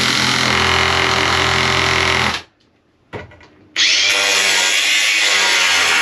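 Two hand-held power tools run in turn against the boat's frame. A power tool runs steadily and stops about two and a half seconds in; after a short pause and a brief blip, a cordless angle grinder starts up and runs steadily with a bright, hissing whine.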